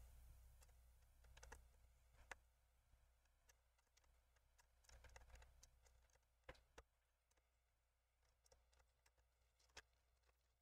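Near silence with a few faint, scattered clicks and taps of small tools and parts being handled on the laptop, the sharpest about two seconds in, then around six and a half and near the end.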